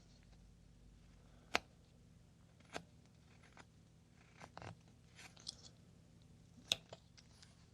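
Carving knife cutting into basswood: a handful of short, crisp cuts at irregular intervals, the two sharpest about a second and a half in and near the end.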